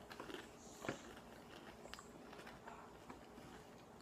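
Faint, soft chewing and mouth sounds of someone eating cheese-filled Doritos Loaded snack bites, with a few small clicks, one a little louder about a second in.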